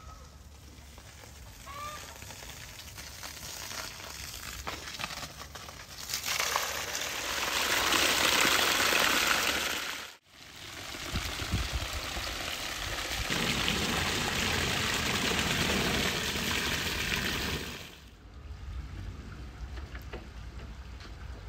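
Water poured from a height onto raw tiger shrimp in a perforated metal pan, splashing and running out through the holes. It comes in two long spells, broken by a sudden cut about ten seconds in.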